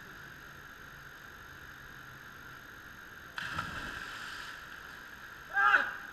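A person jumping feet-first into a deep river pool: a sudden splash of water about three and a half seconds in. It is followed near the end by a short loud yell as the swimmer surfaces.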